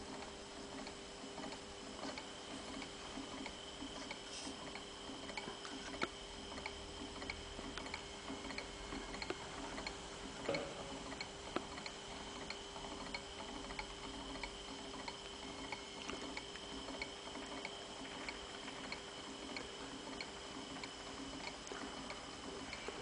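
Small Ross-yoke Stirling engine running steadily, its linkage and flywheel giving a light, regular tick about twice a second.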